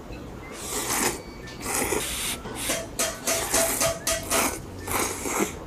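A man slurping ramen noodles off chopsticks: a series of hissing slurps, a few longer ones, then a quick run of short ones, and one more near the end.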